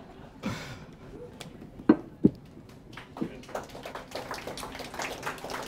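Light clatter of dishes and utensils handled on a kitchen counter: two sharper knocks with a short ring about two seconds in, then scattered lighter clicks.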